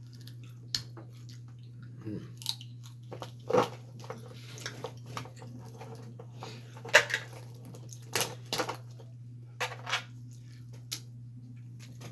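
Close-up eating sounds from a seafood boil: chewing and biting, with scattered sharp clicks and smacks, over a steady low hum.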